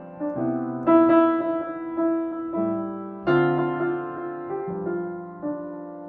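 Background piano music: a slow run of struck chords and notes, each fading away after it is played.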